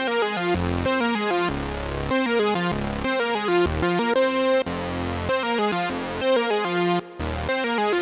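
Dreadbox Nymphes analog polysynth played from a keyboard: a quick run of changing notes over low bass notes, with a brief gap about seven seconds in.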